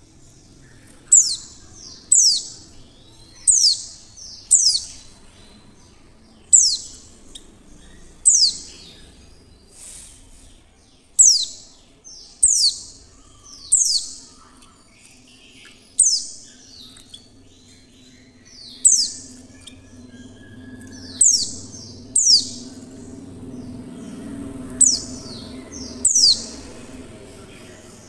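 Female white-eye (pleci) calling: short, sharp high chirps that sweep downward, repeated irregularly every one to two seconds. This is the female call that keepers play to draw caged white-eyes into song.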